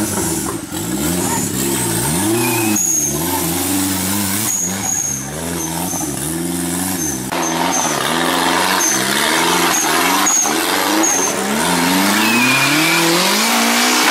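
Off-road racing buggy engine revved hard and let off again and again, about once a second, the rise and fall of a buggy clawing for traction in mud.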